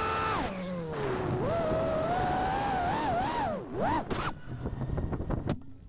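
FPV freestyle quadcopter's T-Motor ITS 2208 1750kv brushless motors whining, the pitch dropping sharply as throttle is cut, then rising and wavering with several quick dips as the pilot works the throttle. The motor sound cuts off about four seconds in, followed by a scatter of short clicks and knocks.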